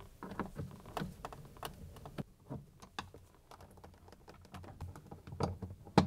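A Phillips screwdriver undoing the small screws that hold a plastic water bottle inside a fridge, with the bottle handled: a run of light, irregular clicks and ticks, with a couple of louder knocks near the end.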